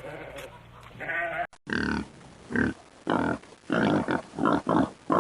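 A short goat bleat, then after an abrupt cut a pig grunting in a run of short grunts, about two a second.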